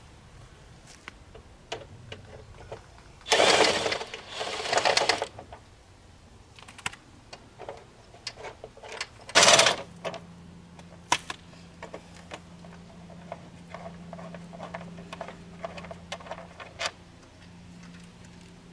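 Tool noise while two T40 Torx bolts are taken out of the winch mount: two loud rasping bursts a few seconds in, a sharp clank about halfway, then scattered clicks over a steady low hum.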